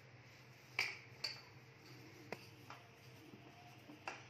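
Faint clicks and taps of hands against a steel plate while softened paneer is pressed and gathered into a ball: four short ticks, two close together about a second in, one past the middle and one near the end.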